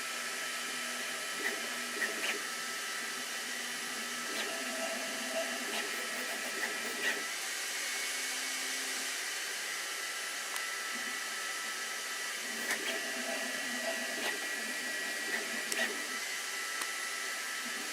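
Sovol SV08 3D printer running a print: a steady fan hiss with several thin, steady high tones over it and scattered light ticks.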